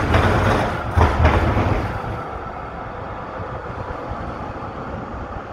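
Electric tram running past on its rails, loud with a few knocks for about two seconds, then fading into steady street traffic noise.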